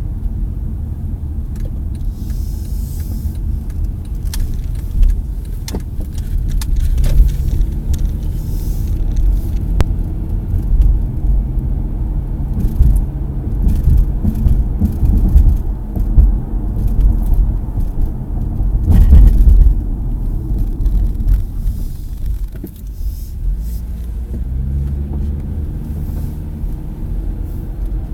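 A 2012 Acura TSX being driven: steady low rumble of road and engine noise, with scattered light clicks and rattles. A faint 'tac' knock comes about three-quarters of the way through; this is the noise the car makes when braking, turning the wheel or on undulating road.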